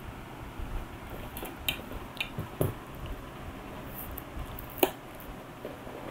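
Packaging and plastic accessories of a boxed action camera being handled: a handful of light clicks and taps, the sharpest about five seconds in.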